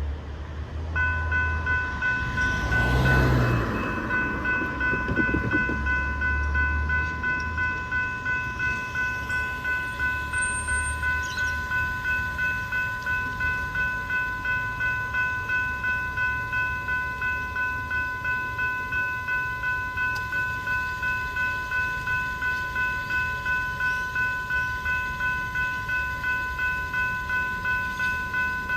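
Level crossing warning bell ringing in a steady rhythm of about two strokes a second, starting about a second in: the crossing has activated for an approaching train. A louder passing rumble is heard a few seconds in.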